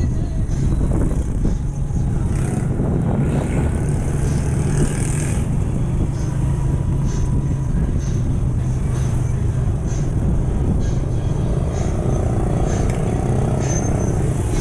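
Motorcycle engine running steadily while riding, heard from the rider's seat, with the hum of surrounding street traffic.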